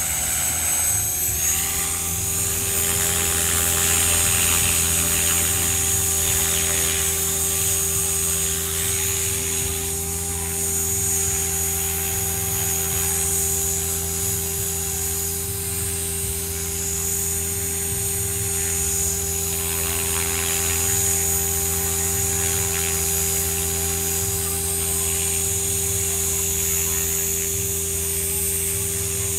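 Align T-Rex 500 electric RC helicopter hovering low, running steadily: a high whine over a lower rotor hum, swelling and easing slightly as it holds its hover.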